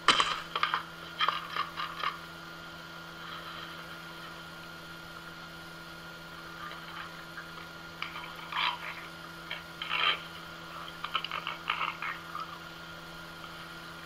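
Bursts of crunching and scraping as a cat and an Amazon parrot eat dry food from a plastic bowl, in clusters at the start and again past the middle, over a faint steady hum.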